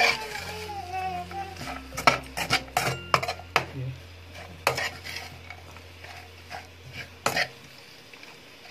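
A spatula scraping and knocking against a metal wok as shredded vegetables and chicken are stirred and tossed. The strikes are irregular, the loudest about two seconds in, and they thin out near the end.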